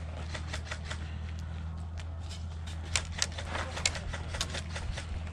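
Scattered sharp clicks and taps over a steady low hum, with the two loudest clicks about three seconds in.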